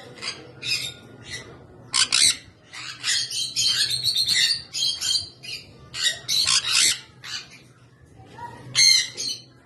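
Lovebirds screeching and chattering, many short shrill calls overlapping from several birds, busiest through the middle and with a loud burst near the end, over a steady low hum.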